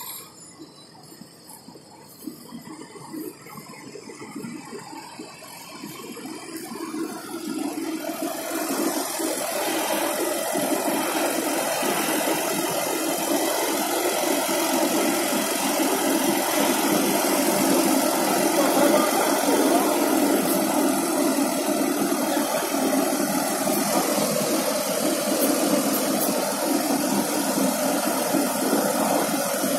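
Fendt tractor's diesel engine running. It grows louder over the first eight or nine seconds, then runs steadily.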